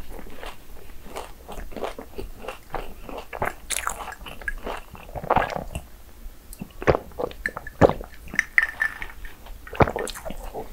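Crisp churros being bitten and chewed, an irregular run of crunches with a few sharper, louder bites near the end.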